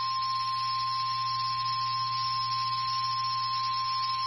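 NOAA Weather Radio 1050 Hz warning alert tone: a single steady, unbroken tone, over a low hum and hiss, signalling a severe thunderstorm warning to alert receivers.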